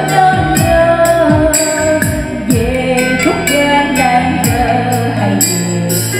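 Karaoke backing music with a woman singing into a microphone, played loud through the NT 1508 electric trolley speaker with two 40 cm bass drivers; a steady kick-drum beat about twice a second.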